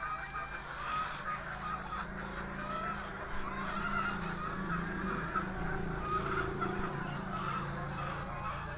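A flock of chickens calling, with many short overlapping calls throughout. A steady low hum runs underneath.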